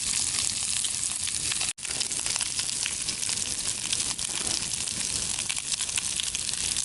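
Bacon frying over a campfire: a steady sizzling hiss thick with small crackles and pops. The sound cuts out for an instant a little under two seconds in.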